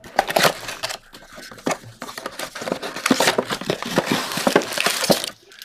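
Plastic wrap crinkling and tearing and cardboard being pulled open as a Mosaic football-card mega box is unsealed by hand: a dense run of crackles and rips that stops about five seconds in.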